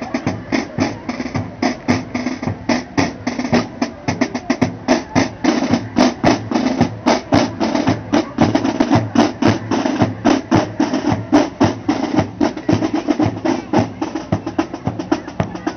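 A drum band playing, with rapid, evenly repeating snare drum strokes over a held lower tone.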